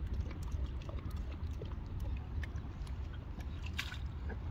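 Low steady rumble of wind on the microphone, with light scattered clicks and taps.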